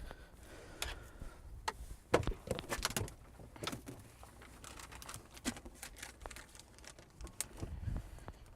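Irregular clicks, taps and light rustling of things being handled close to the microphone.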